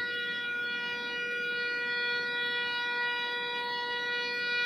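Diesel-hydraulic locomotive's horn giving one long, steady blast on a single note.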